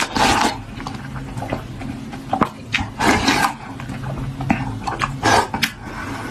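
A person eating noisily close to the microphone, with three loud breathy bursts (at the start, about three seconds in and about five seconds in) and small clicks between them, over a steady low hum.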